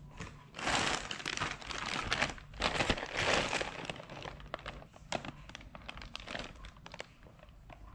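Plastic courier mailer bag crinkling as it is handled, loudest in two spells in the first half, then lighter crackles and clicks.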